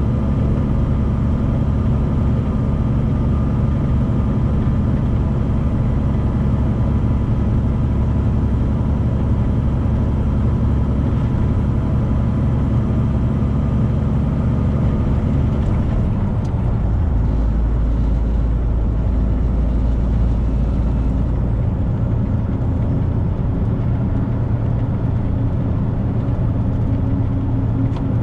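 Steady engine and road noise inside the cab of a 2018 Freightliner semi truck driving on the interstate. A little over halfway through, the low drone drops and changes pitch.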